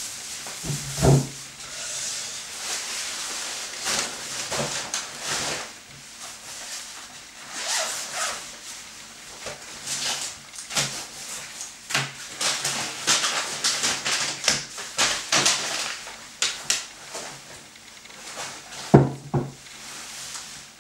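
Shopping bags and a nylon puffer jacket rustling, with scattered knocks and clinks as groceries are set down on a wooden table. A heavier thump comes about a second in and another near the end.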